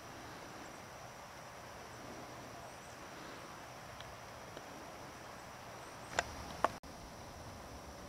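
Faint outdoor ambience with a thin, steady high whine. Two short, sharp chirps sound just after six seconds, followed by a brief dropout.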